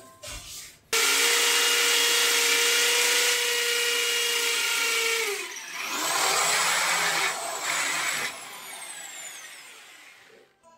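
Handheld power drill drilling holes into a ceramic subway-tile wall: a steady motor whine for about four seconds that slows down, then a second, shorter run that fades out.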